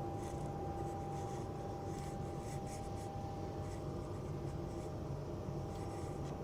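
Steady low room hum with a thin, steady high whine running under it; no shot or click.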